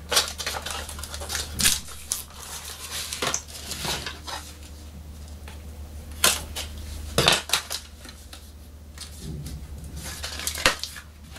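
Cardboard box and plastic display packaging of a diecast toy car being handled and worked open: scattered sharp clicks, knocks, scrapes and rustles, over a steady low hum.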